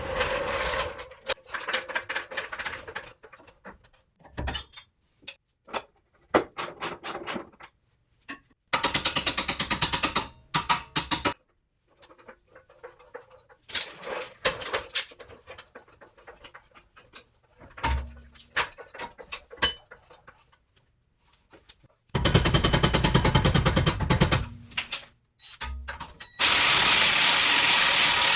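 Hand tools clinking and clanking on metal suspension parts, with three longer rattling runs of an impact wrench on the strut and coilover bolts; the last run starts near the end.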